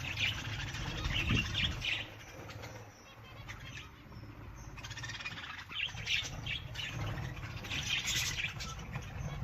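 Birds chirping in quick clusters, busy for the first two seconds, sparse for a few seconds, then busy again from about halfway, over a low steady rumble.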